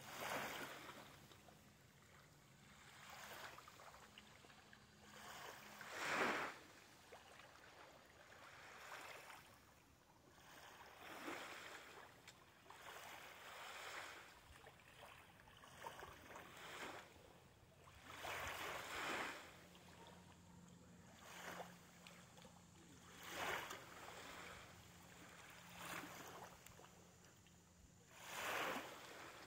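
Small waves lapping on a sandy lake shore: soft splashing swells about every two to three seconds, the loudest about six seconds in, over a faint steady low hum.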